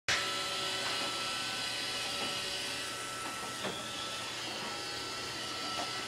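Roomba robot vacuum running on carpet: a steady whirring hiss with a faint whine, and a few soft knocks.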